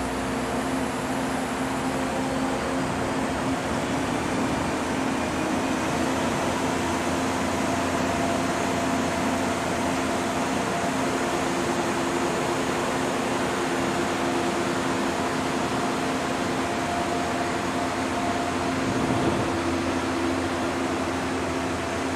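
Steady machinery hum: an unbroken rushing noise with a few low droning tones that hold steady.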